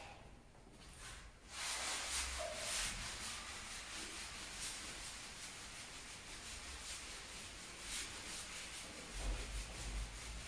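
Whiteboard eraser rubbing across a whiteboard in repeated wiping strokes, starting about one and a half seconds in.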